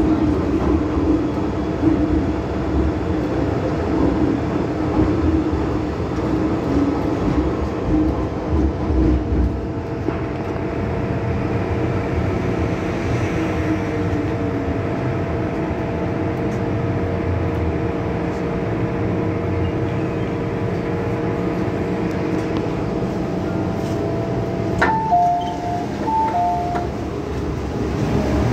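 MTR Kwun Tong Line M-Train running underground, heard from inside the car: a steady rumble with a humming tone that eases about a third of the way in as the train slows. Near the end a two-tone electronic chime sounds several times, alternating high and low.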